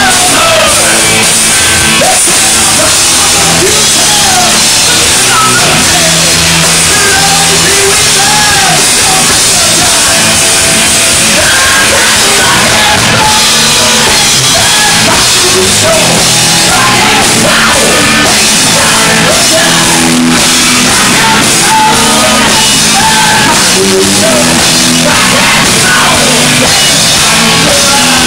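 Live hard-rock band playing loud: distorted electric guitar, bass and a drum kit, with a man singing lead through a microphone.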